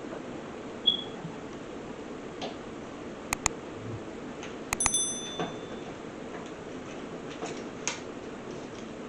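Scattered clicks and knocks of hand tools and metal fastener hardware. About five seconds in comes one bright metallic clink that rings briefly, all over a steady background hum.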